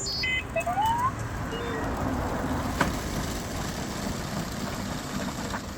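R2-D2 droid sound effects from the replica's speaker: a quick run of high electronic beeps and a rising whistle in the first second or so, then a short lower tone. These sit over a steady noisy hum.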